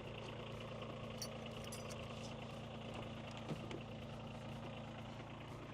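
An engine idling steadily, with a light knock about three and a half seconds in.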